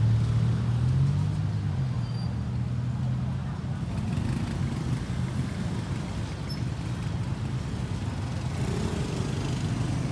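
Low, steady hum of a nearby motor vehicle's engine running, with street traffic noise under it.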